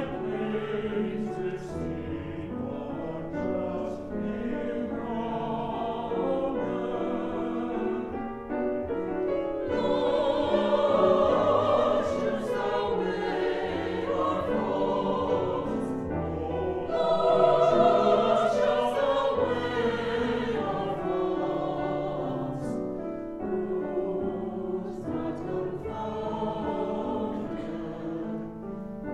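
Mixed adult church choir singing a sacred anthem in parts, with sustained notes that swell louder twice, about ten seconds in and again near the middle.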